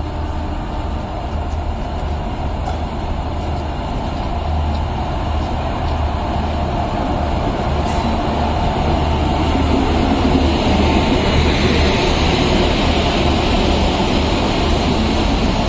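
Passenger train pulling into the station past the platform, a steady rumble of wheels on rails over a low hum, growing louder over the first ten seconds or so.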